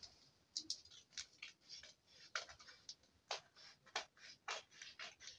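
Scissors snipping through a paper pattern sheet, a run of short irregular cuts about two a second.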